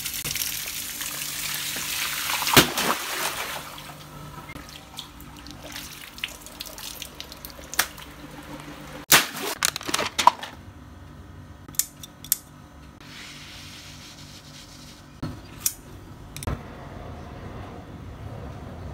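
Water from a garden hose splashing onto a water-filled squishy toy for the first few seconds, then it stops. After that, a paper packet crinkling and a scatter of clicks and handling noises as a rubber stretch toy is unwrapped and handled.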